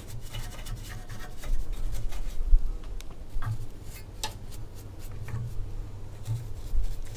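A brush scrubbing dirt and debris off a lawnmower engine around the carburetor: irregular scratchy strokes with a few sharp clicks.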